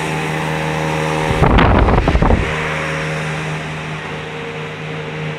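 Steady machine hum of a large hall, with a few fixed low tones. About a second and a half in, a loud, fluttering low rumble of wind or handling on the microphone lasts about a second.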